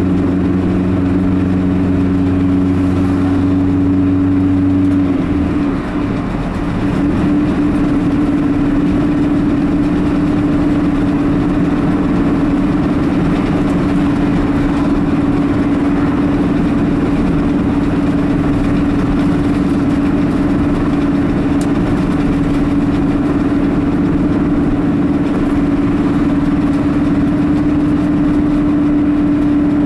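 A car's engine and tyre noise heard from inside the cabin while driving along at steady speed. About five seconds in the engine note changes and the sound dips briefly, then settles into a steady drone.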